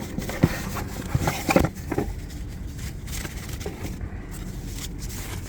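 A few light clicks and scrapes of hard plastic parts being handled, the loudest in the first two seconds, over a steady low outdoor hum.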